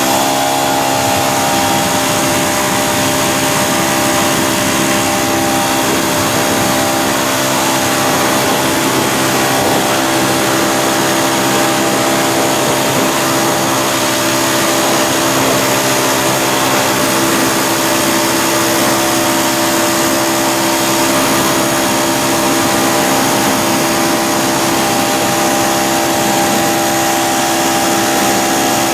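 PAXCESS 3000 PSI electric pressure washer running steadily: a constant motor-and-pump whine over a steady hiss.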